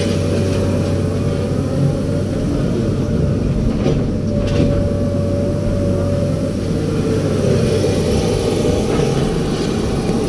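Komatsu PC200 excavator's diesel engine running steadily under working load, heard from inside the cab as the boom and bucket dig and swing. A steady hum is joined by a higher steady tone that shifts slightly about four seconds in.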